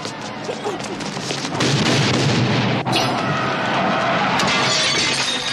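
A loud explosion about a second and a half in, rumbling on for several seconds, with a sharp crack shortly after it starts.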